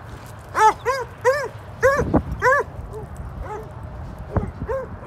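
Dog barking during play in a run of short, high yapping barks, about nine in all, loudest in the first half and fainter toward the end. A dull thump about two seconds in.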